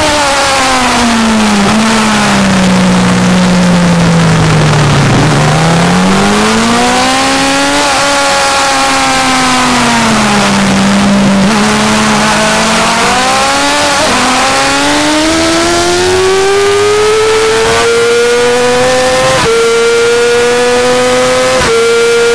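2008 Yamaha R6's inline-four engine heard from the bike itself. The revs fall as the rider brakes and downshifts for a slow corner, then climb steadily under hard acceleration, with brief steps at each upshift. Wind rush over the fairing is heard throughout.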